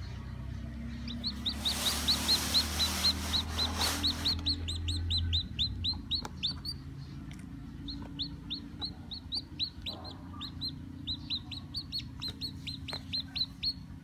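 A newly hatched chick peeping rapidly, about four to five short falling peeps a second, in two long runs with a brief pause in the middle. A low rumble and a rushing hiss sound under the first few seconds.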